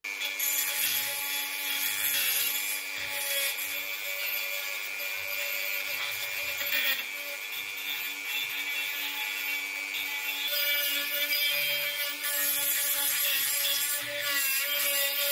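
Handheld rotary tool running with a steady high whine while its small bit grinds and scrapes rust from inside the narrow metal tubes of an antique spirit stove burner. The scraping comes and goes as the bit works in and out of the tubes.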